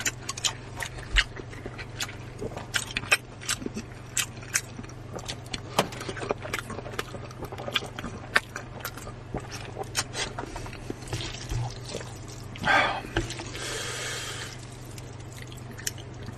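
Close-miked eating sounds: many quick wet mouth clicks and chewing noises, with a longer slurp about three-quarters of the way through.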